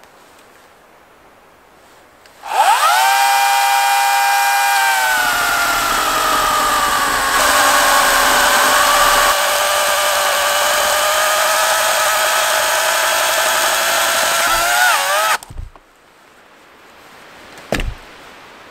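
Battery-powered chainsaw spinning up with a quick rising whine about two and a half seconds in, then cutting through a log for about ten seconds, its pitch sagging a little under load. It stops suddenly about fifteen seconds in. A single knock near the end.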